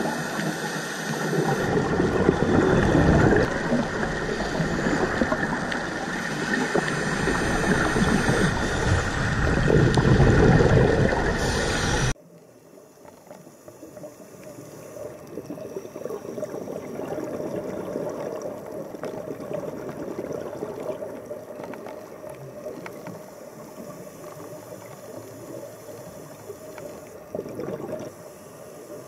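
Underwater water noise picked up by a diving camera: loud and uneven, swelling twice, then cutting off sharply about twelve seconds in to a much quieter, steady hiss.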